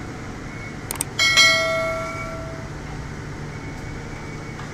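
Metal ladle striking a steel pot: a couple of light clinks, then a sharp clang about a second in that rings on in several clear tones, fading over about a second and a half. A steady low hum runs underneath.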